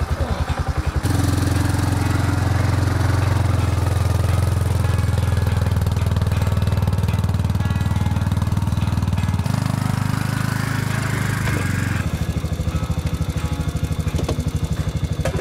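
Kawasaki Prairie 360 ATV's single-cylinder four-stroke engine running, getting louder about a second in as the quad moves off, with its note changing twice in the second half.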